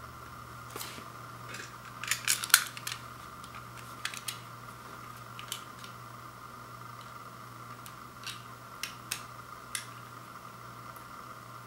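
Shrink-wrap on a vinyl LP jacket being slit along its edge with a cutting tool: scattered crackles and clicks of the plastic film, with a quick cluster of them about two seconds in, over a steady background hum.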